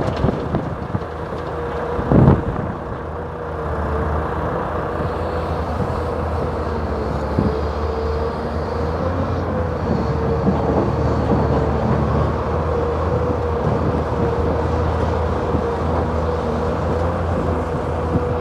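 Large Hyundai Robex 480LC-9S crawler excavator running steadily, its engine drone carrying a steady whine, with a single knock about two seconds in.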